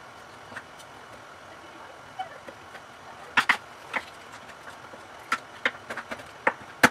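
Chef's knife chopping pork on a wooden cutting board: short, sharp knocks of the blade on the board at irregular intervals, sparse at first and coming more often in the second half.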